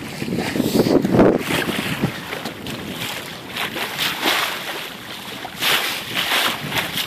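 Wind gusting across the microphone over the rush and wash of choppy water along a wooden gaff cutter's hull under sail in a fresh breeze, with louder spells of hiss from the waves.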